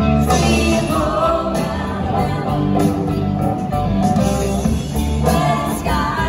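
Live music from a woman singing and playing an electric guitar through a small PA.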